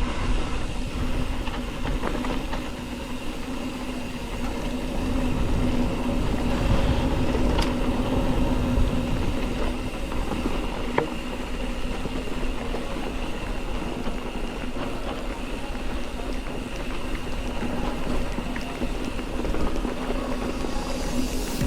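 Mountain bike being ridden: a steady rush of wind and tyre noise with a constant hum, starting suddenly.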